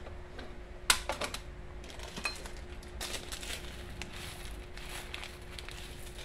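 Irregular sharp clicks and light rattles from handling a plastic airsoft pistol magazine and a bag of plastic BBs, the loudest click about a second in and a quick run of clicks about three seconds in. A faint steady hum runs underneath.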